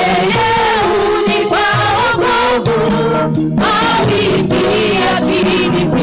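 Church worship team singing a gospel praise song, several voices together over steady instrumental accompaniment.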